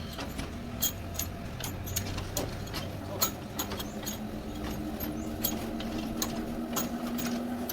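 Sawmill machinery: irregular sharp clicks and knocks over a low steady machine hum, with a steady tone coming in about halfway through.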